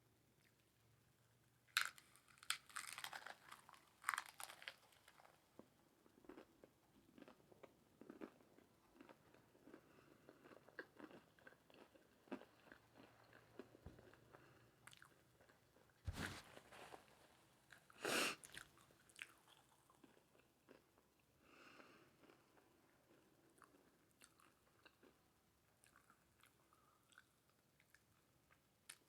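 Close-up eating sounds: bites into a crunchy taco shell and chewing. Louder crunching bites come about two to four seconds in and again around sixteen and eighteen seconds, with quieter chewing between.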